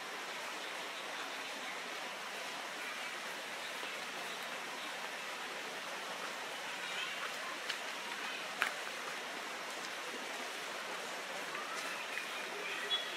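Steady outdoor background hiss with a few faint sharp clicks, the loudest about eight and a half seconds in.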